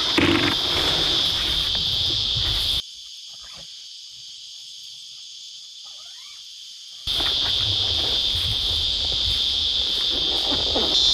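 A steady, high-pitched insect chorus, with low bumps and rustles as a rooftop tent is packed down. About three seconds in, the sound drops to a much quieter level with a faint rising call. The insects and handling noise return abruptly about seven seconds in.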